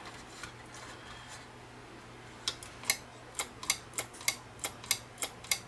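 A run of sharp little clicks, about three a second, starting about halfway in, from the emergency lighting unit as hands work at its circuit board. A faint steady hum lies underneath.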